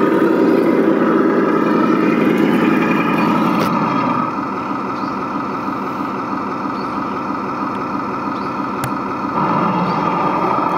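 Tamiya 1/16 Leopard 2A6 radio-controlled tank running, a steady engine-like hum. It is louder for the first four seconds, drops to a lower, idle-like level, then rises again near the end.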